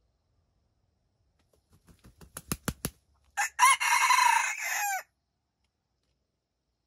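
Wild junglefowl rooster beating its wings in a quickening run of sharp claps, then giving one short crow that ends in a falling note.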